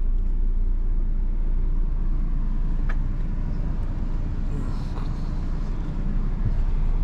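Small car's engine idling: a steady low rumble, with two faint clicks about three and five seconds in.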